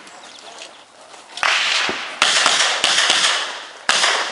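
Smith & Wesson 610 10mm revolver fired four times in quick, uneven succession during a competition stage, each shot sharp and followed by a short echoing decay.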